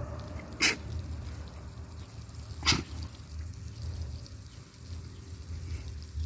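A pig sneezing twice, two short sharp snorting bursts about two seconds apart, over a low steady rumble.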